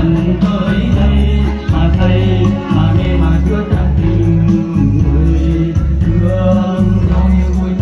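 Loud dance music with a heavy, pulsing bass beat and a singing voice over it.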